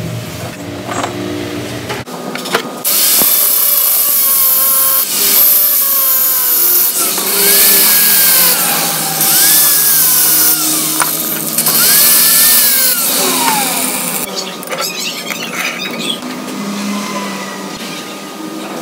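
Angle grinder with an abrasive disc cutting steel, a loud hissing whine that starts about three seconds in and stops about fourteen seconds in, its pitch rising and falling several times as it cuts. Lighter ticks and clinks of hand tools on steel before and after.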